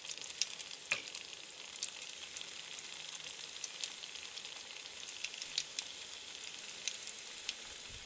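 Battered sweet potato slices deep-frying in hot oil: a steady sizzle full of small crackles and pops, with one sharper click about a second in.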